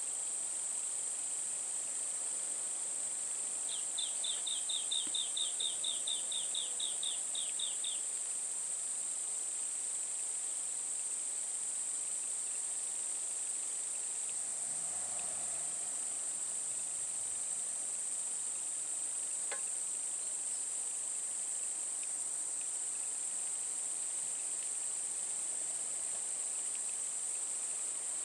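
A steady, high-pitched drone of insects, with a quick run of about fifteen chirps between about four and eight seconds in.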